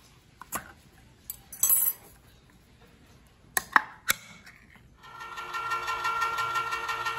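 A ring-pull can opened by hand: a few metal clicks, a short tearing burst about two seconds in, and sharp clicks of the tab and lid around four seconds in. About five seconds in an electric can opener starts and runs steadily with a whine as it cuts round a large can.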